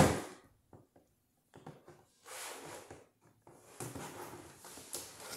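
Toy packaging being handled: a sharp knock at the start, then a quiet stretch with a few light ticks, then faint rustling and scraping as tape and packing are worked loose.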